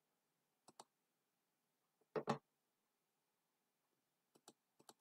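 Computer mouse and keyboard clicks against near silence: two soft clicks near the start, a louder double click about two seconds in, and a few light clicks near the end.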